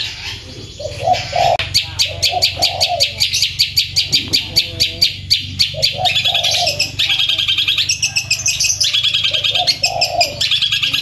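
Long-tailed shrike (cendet) singing loudly in fast, unbroken runs of sharp, high, repeated notes, several a second. Softer, lower notes recur underneath every few seconds.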